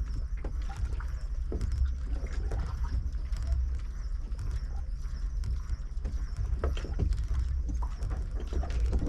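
Rod and reel being wound in against a hooked fish, with irregular light clicks and knocks over a steady low rumble.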